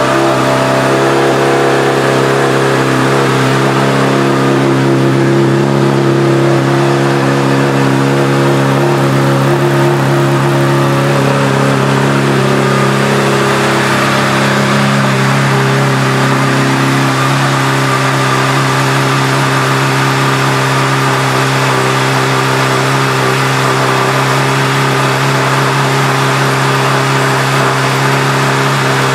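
A 2007 Honda CBR600RR's inline-four engine idling steadily through an aftermarket Yoshimura exhaust.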